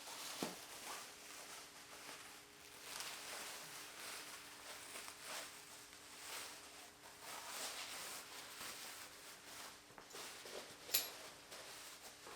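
Irregular rustling and scraping as tools and items are handled and set down on a toolbox, with a small knock about half a second in and a sharp click near the end, over a faint steady hum.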